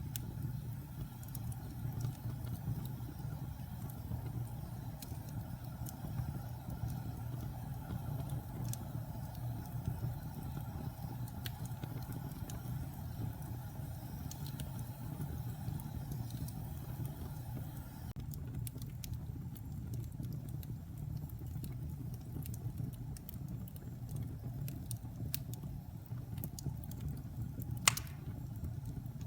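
Wood fire burning in a fireplace: a steady low rumble of the flames with scattered crackles, and one sharp pop near the end.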